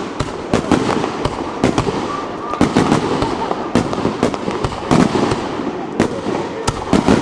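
Fireworks going off in quick, irregular succession: many sharp bangs, several a second, over a steady hiss.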